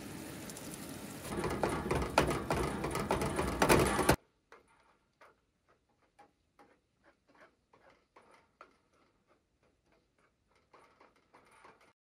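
Minced beef sizzling in a steel frying pan on a camp stove, with steady hiss and crackle and the clicking and scraping of metal tongs in the pan, growing louder about a second in. About four seconds in it cuts off suddenly to near silence with faint scattered ticks.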